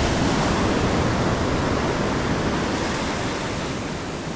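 Surf washing up a sandy beach: a steady rushing wash of breaking waves that slowly eases.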